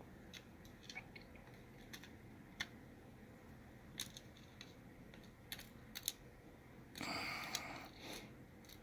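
Faint, scattered small clicks and taps as tiny lock pins and springs are handled and turned over on a work surface, with a brief rustling scrape about seven seconds in.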